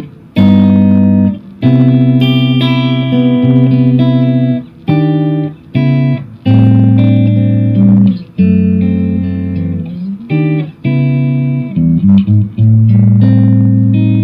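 Electric guitar playing ringing chords through the Lekato Tank G Black preamp pedal on its Vox AC30 amp model, heard through a Boss Katana amp's speaker. Each chord is held for about a second or two, with short breaks between them.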